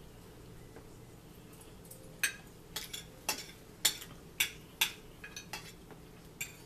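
Forks clinking and scraping against dinner plates: about a dozen sharp clinks, roughly two a second, starting some two seconds in.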